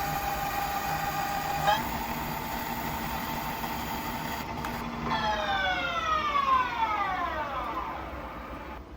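Lathe spindle drive whining at a steady pitch, shifting slightly about two seconds in, then sliding down in pitch from about five seconds in as the spindle winds down to a stop.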